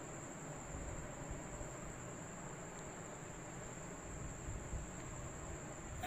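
Cicada calling with a steady, high-pitched, unbroken buzz.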